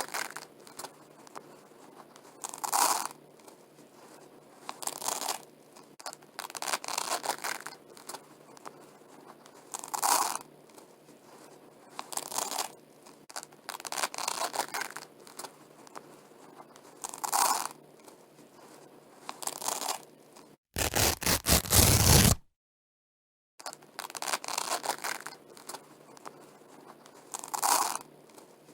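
Velcro hook-and-loop strips being pulled apart over and over, a crackling rip of about a second roughly every two seconds. About three-quarters of the way through, one louder rip stands out, with the sound cutting out completely for a moment just before and after it.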